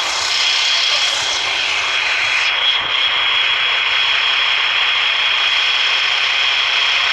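Steady loud vehicle running noise with a constant high-pitched whine, heard from on board.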